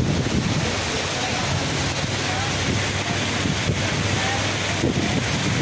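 Heavy rain pouring down onto water, a dense steady hiss, with wind rumbling on the microphone underneath.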